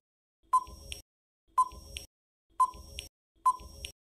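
Quiz countdown-timer sound effect: a short, sharp beep-tick about once a second, four times.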